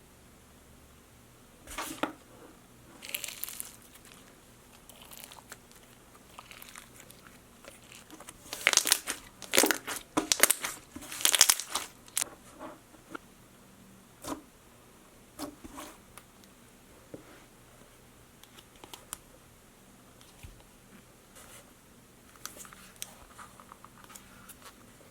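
Slime being handled and pulled apart: irregular crackling, crinkling and tearing noises, busiest and loudest in a run of rips near the middle.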